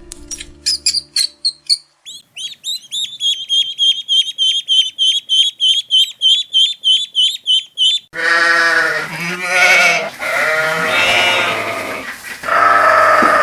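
A rapid run of high, even chirps, about three a second, gives way about eight seconds in to loud, wavering bleating from livestock: several long calls close together. A short bit of music sounds at the very start.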